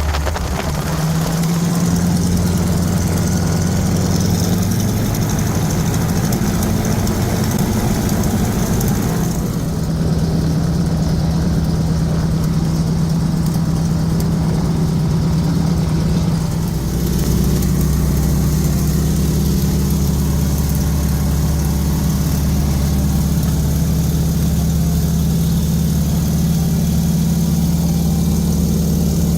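BT-13 Valiant's Pratt & Whitney R-985 nine-cylinder radial engine running steadily, with a low drone that changes tone a little about nine seconds in and gets louder and deeper about seventeen seconds in.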